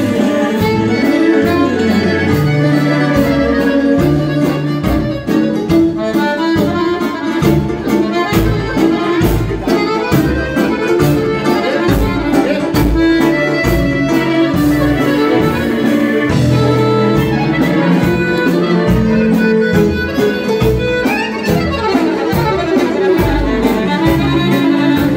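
A live kolo dance tune: accordions lead over electric guitar, keyboard and a drum kit keeping a fast, steady beat.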